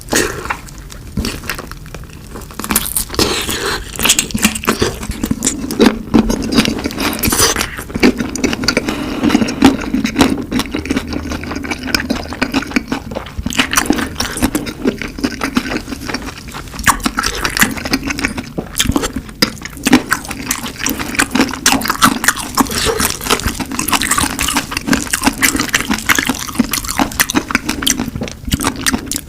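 Close-miked mukbang eating sounds: wet chewing, smacking and crunching of spicy fried chicken, a dense run of quick clicks and crackles.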